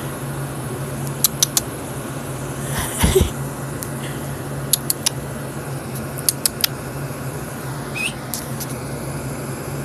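Window air conditioner running with a steady low hum. Small clusters of sharp clicks come and go over it, with a brief rustle about three seconds in.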